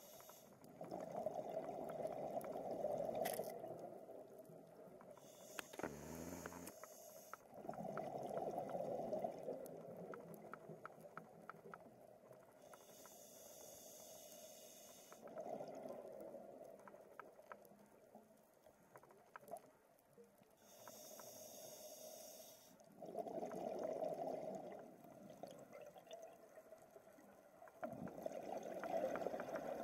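Scuba diver breathing through a regulator, heard by an underwater camera. A high hiss on each inhale is followed by a longer burst of exhaust bubbles on each exhale, in a slow cycle repeating about every seven seconds.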